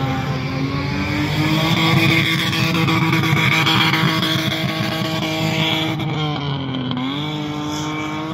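Toyota Mark II engine held at high revs while the car drifts in circles on loose dirt. Near the end the revs drop briefly, then climb straight back up.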